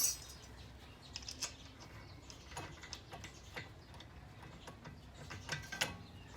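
Scattered light metallic clicks and taps as new brake pads and the caliper are fitted back onto a front disc brake, with a few sharper clicks about halfway through and near the end.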